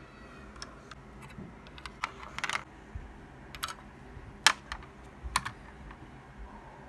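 Scattered sharp clicks and taps of plastic Lego pieces against a Lego baseplate as minifigures and pieces are moved: single clicks and small clusters, the sharpest about four and a half seconds in.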